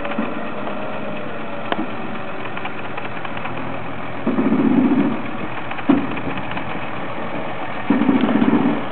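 Unic 75 PC 4x4 fire truck's diesel engine running at low revs as the truck crawls over uneven ground with its axles twisting, swelling louder twice for about a second, near four seconds in and again near the end, with scattered short knocks.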